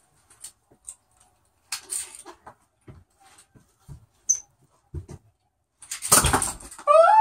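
Light clicks and knocks of Nerf blasters and foam darts being handled, then about six seconds in a loud short burst, a Nerf blaster firing. A brief pitched sound follows at the very end.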